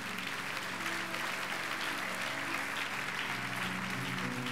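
Church congregation applauding in celebration, over background music of held chords.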